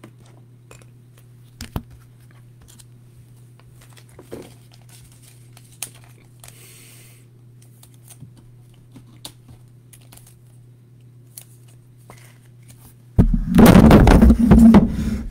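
Trading cards and plastic top-loaders handled on a table: faint scattered clicks and rustles over a steady low electrical hum. About thirteen seconds in, the microphone is dropped, and loud clattering, rubbing handling noise on the mic fills the last two seconds.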